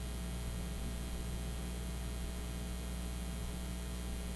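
Steady low mains hum with a faint hiss over it, unchanging throughout.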